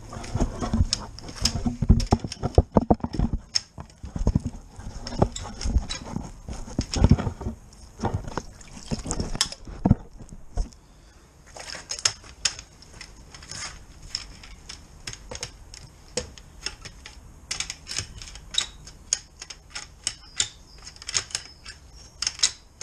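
Drain rods with a rubber plunger being worked up and down in a flooded, blocked manhole: repeated sloshing splashes and knocks of water and rod. They are heavy for about the first ten seconds, then give way to lighter, quicker splashing and dripping.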